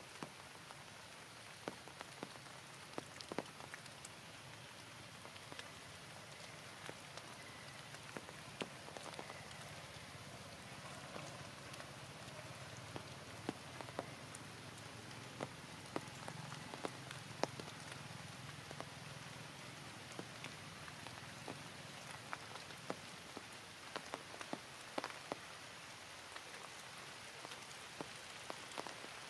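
Steady rain: a constant hiss dotted with many sharp, separate drop hits.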